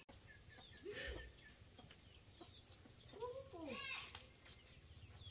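Chickens clucking now and then, a few short calls around one second in and again past the three-second mark, with small birds chirping faintly.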